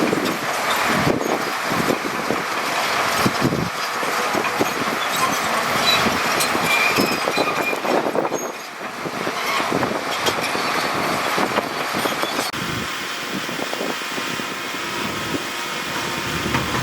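Heavy earthmoving machinery at work: an engine running under a dense clatter of irregular knocks, which settles about twelve seconds in to a steadier engine hum.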